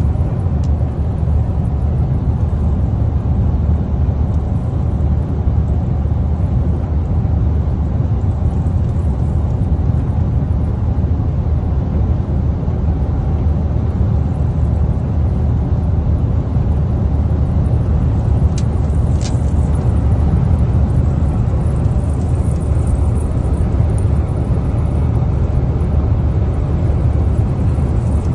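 Steady low rumble of a vehicle's engine and tyre noise heard inside the cabin while driving at highway speed, with a couple of faint clicks about two-thirds of the way through.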